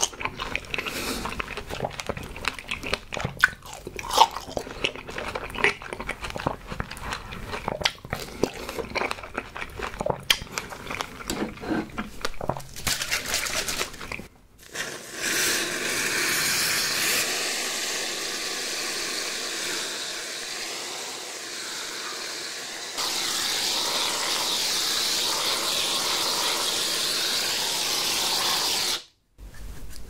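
Close-up chewing and biting of juicy strawberries for about the first fourteen seconds. Then an aerosol can of whipped cream hisses steadily as cream is sprayed out, getting louder about two-thirds of the way through and cutting off shortly before the end.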